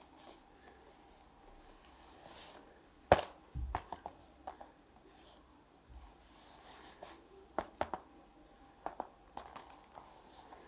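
Hands handling a cardboard board-game box: scattered light taps and knocks, with one sharp knock about three seconds in, and two soft brushing swishes as the hand slides over the box.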